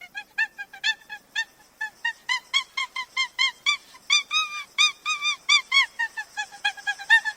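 Geese honking, a rapid run of short calls at about four a second.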